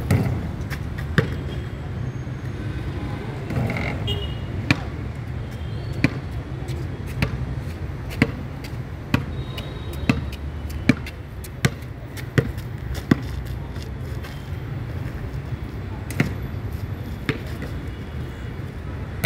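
Basketball bouncing on a hard outdoor court, single bounces about a second apart with a few longer pauses, over a steady low rumble.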